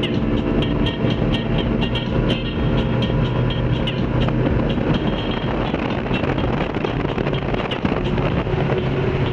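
Engine of a 22 ft Hydra-Sports boat running steadily under way, with wind on the microphone. A run of light ticks, about three a second, sits over it in the first half.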